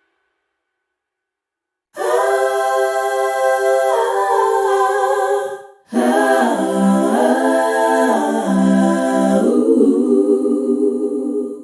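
Background music of wordless sung voices: after about two seconds of silence, two long held vocal phrases with a short break between them, the second moving up and down in pitch.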